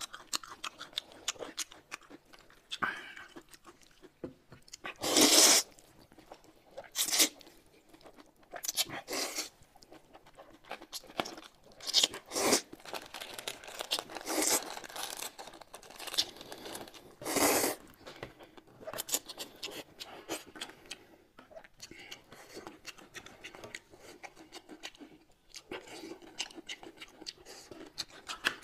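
Close-up eating sounds: noodles slurped and chewed, and a plastic food packet crinkled and torn open, heard as many small clicks and several short loud bursts.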